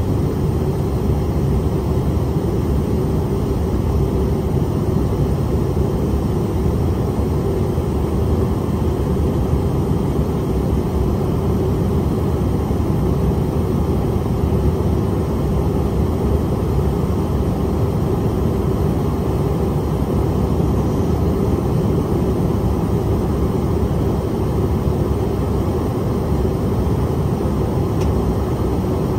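Cabin noise of a Bombardier CRJ700 regional jet climbing after takeoff: a steady rush of air and engine drone from its two tail-mounted GE CF34 turbofans, with a low hum held on one pitch.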